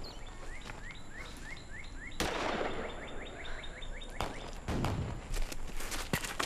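Woodland ambience with a bird calling in short rising chirps, repeated about three times a second in two runs. A burst of rustling comes about two seconds in, and several sharp clicks come in the second half.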